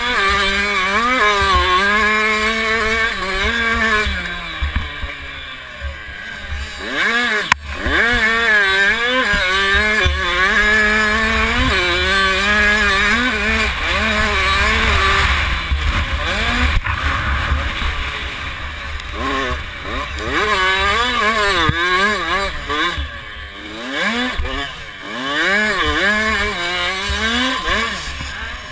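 Two-stroke 65cc motocross bike engine heard from on board, revving up and down over and over as the bike is ridden hard, with wind rumbling on the microphone. There is a sharp knock about seven and a half seconds in.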